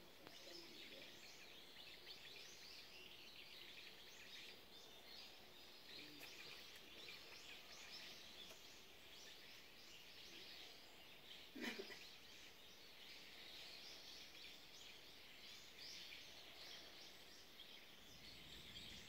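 Faint outdoor quiet with birds chirping continually in the trees, and one short knock about halfway through.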